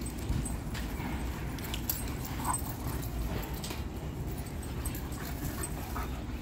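Two dogs play-wrestling and chasing: faint scuffles and clicks over a steady low rumble, with one brief dog vocalisation about two and a half seconds in.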